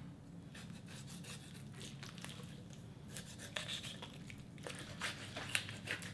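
Faint handling of a raw whole chicken, then a kitchen knife cutting through the skin between leg and body, with a few soft scraping strokes from about three seconds in.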